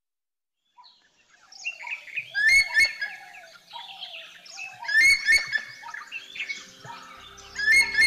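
Several birds calling and chirping, beginning after a second of silence; a louder, sharp call recurs three times, about two and a half seconds apart. Low sustained music tones come in near the end.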